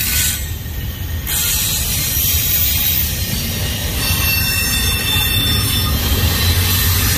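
Double-stack intermodal freight cars rolling past, with the steel wheels squealing on the rails in thin high tones over a steady low rumble. The squeal drops away briefly in the first second, then comes back.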